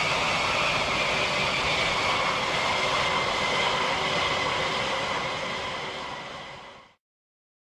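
Jet aircraft engine noise: a loud, steady roar with a high whine that slowly falls in pitch. It fades out from about five seconds in and stops short of the end.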